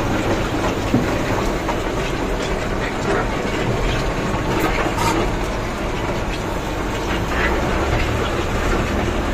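Vehicle moving slowly over a gravel mine road, heard from inside the cab: a steady rumble of engine and tyres on gravel, with small rattles and ticks throughout.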